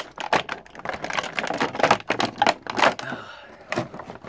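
Clear plastic packaging bag crinkling and crackling in quick, irregular bursts as a plastic action figure is pulled out of it.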